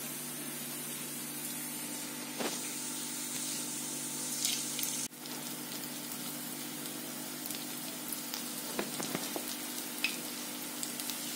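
Batter-coated chicken pieces sizzling softly in hot oil as they are spooned into the pan for shallow frying, with a few light clicks.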